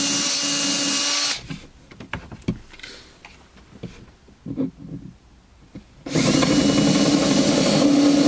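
Cordless drill with a Forstner bit boring through laminated MDF, a steady motor whine that stops about a second in. A few light knocks and handling sounds follow. The drill starts again about six seconds in, cutting from the back side just enough to break the laminate's top coat so the hole won't tear out.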